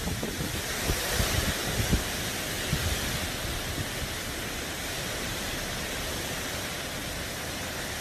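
Heavy wind-driven tropical-storm rain hissing steadily, with gusts of wind rumbling on the microphone in the first three seconds or so.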